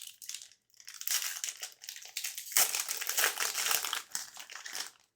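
Plastic crinkling and rustling as trading cards are handled and slid into a plastic sleeve, in three bouts, the loudest about halfway through; it stops just before the end.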